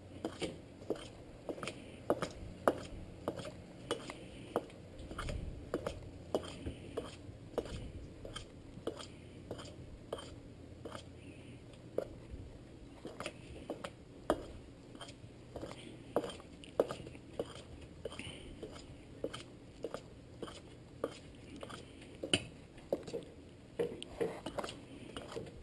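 A fork stirring dry seasoned flour in a stainless steel bowl: light, irregular clinks and taps of the metal against the bowl, two or three a second, with a soft scraping through the flour.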